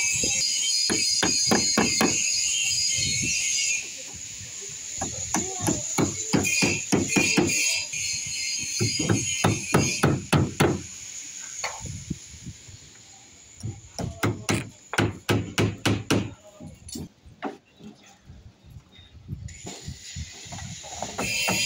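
Hammer driving nails into timber formwork, in runs of quick blows with pauses between them. A steady high-pitched hiss-like sound is loudest for the first few seconds and returns near the end.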